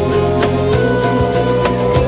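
Background music with a steady beat over sustained pitched tones.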